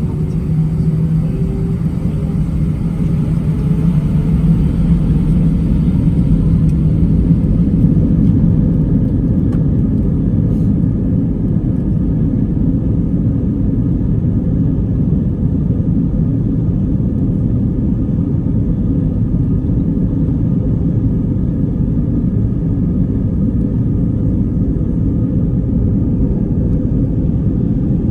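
Steady low rumble of an Airbus A319's jet engines and airflow heard inside the cabin, with a faint steady hum that fades out several seconds in.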